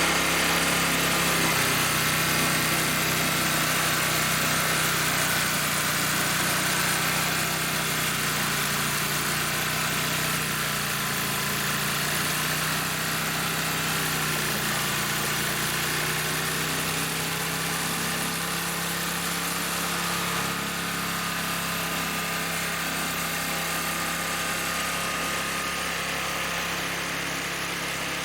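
Old snowblower's small gasoline engine running steadily, left to run and warm up.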